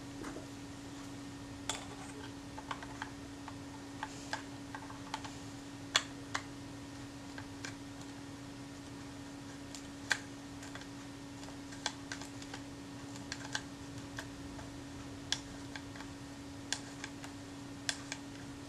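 Scattered light clicks and taps of a small metal tool fumbling against the inside of a Kodak Retina I camera as it is worked into position, irregular and a second or two apart, over a steady low hum.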